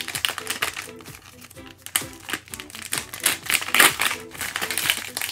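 Plastic blind-bag wrapper crinkling and tearing open by hand: a dense run of small crackles and rustles, over light background music.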